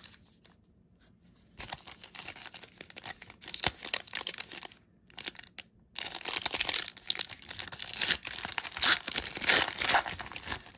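Foil wrapper of a trading-card pack crinkling and tearing as it is ripped open by hand. It comes in two bouts, the second starting about halfway through and louder.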